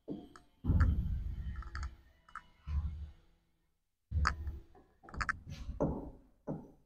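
Irregular clicks and dull knocks in short clusters, from a stylus tapping and dragging on an interactive smart-board screen, mixed with footsteps on the floor.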